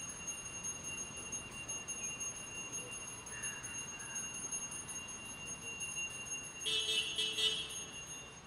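A bell ringing steadily with high, sustained tones, growing louder in a short burst about seven seconds in.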